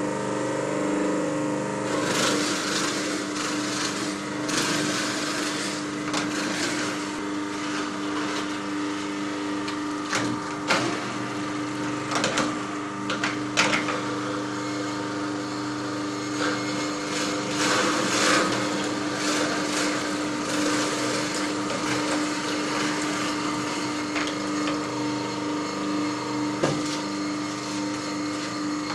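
Champion 2000+ juicer with its wheatgrass attachment running with a steady motor hum while leafy greens are fed in and crushed, giving irregular crackles and snaps, with a cluster of sharper ones in the middle.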